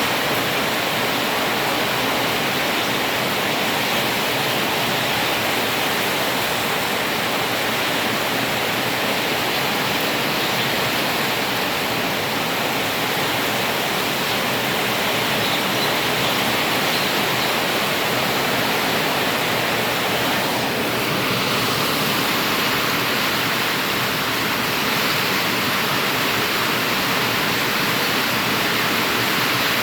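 Steady heavy rain falling, an even hiss that does not let up.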